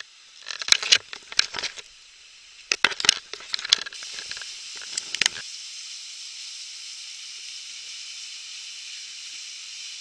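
A run of sharp splashes and knocks through the first half, then the steady hiss of a small waterfall pouring onto rock from about four seconds in.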